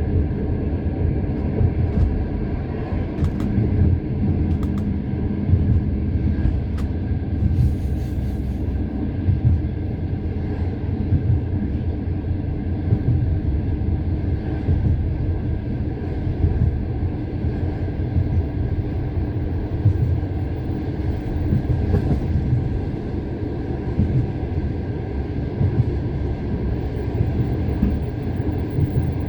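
Passenger train wheels clacking over the joints of jointed (non-welded) rail, heard from inside a moving carriage over a steady low rumble.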